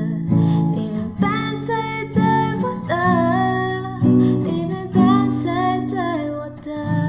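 Mandarin pop ballad: strummed acoustic guitar chords under a sung melody that glides between held notes.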